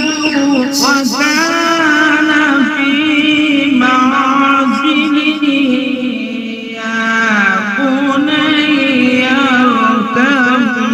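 A man reciting the Quran in slow, melodic tartil style, holding long drawn-out notes with wavering, ornamented pitch.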